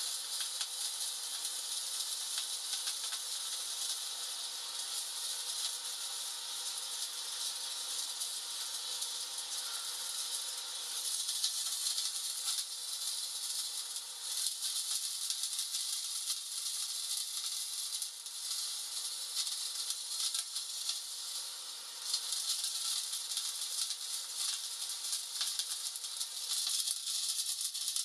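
Hand-held colour-changing firework burning with a steady hiss and a fine crackle of sparks. The level dips briefly a few times.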